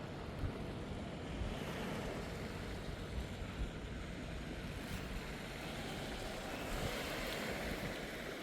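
Wind buffeting the microphone over a steady rush of sea waves, the wash swelling about seven seconds in.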